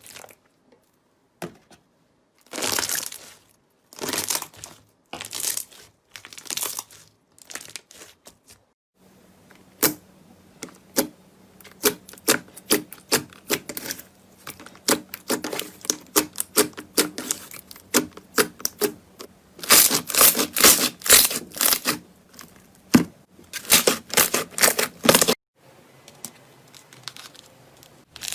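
Crunchy slime being pressed and worked. For the first several seconds it makes separate crisp crunches about once a second. After that it makes dense, rapid sharp crackles and pops.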